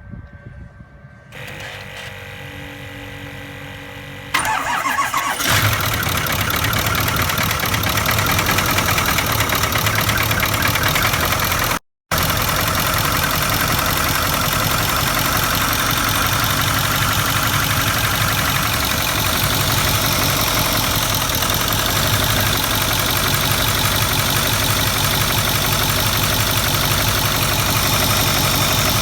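Ford 6.4L Powerstroke V8 turbo-diesel being remote-started with its valve cover off: a few seconds of steady whirring, then it cranks and catches about four and a half seconds in and settles into a steady idle. The owner is trying to trace a tapping knock in the valve train.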